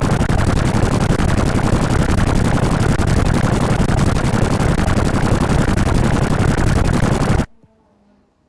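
Loud, harsh sound effect of dense, very rapid crackling like sustained machine-gun fire, cutting off suddenly near the end.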